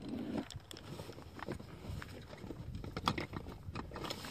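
Rummaging through a fishing backpack: scattered clicks and knocks of plastic tackle boxes with rustling of the bag's fabric and packets.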